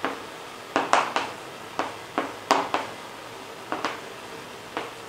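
Chalk writing on a chalkboard: a dozen or so short, sharp taps and scratches at irregular spacing, some in quick pairs, as each letter is stroked on.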